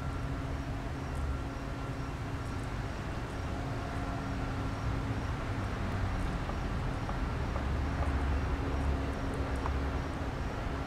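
Steady outdoor background noise: a constant low rumble with a faint steady hum and faint, evenly spaced high ticking.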